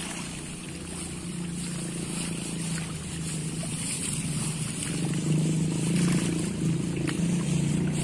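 A small engine hums steadily, growing louder about five seconds in, over the splashing of pangasius catfish churning the pond surface.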